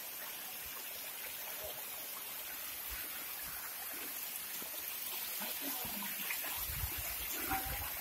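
Water of a small waterfall running and trickling over rock slabs, a steady rush of water noise.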